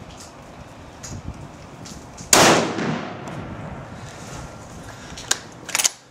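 A single gunshot about two seconds in, with a long echoing tail as it dies away. A few short sharp clicks follow near the end.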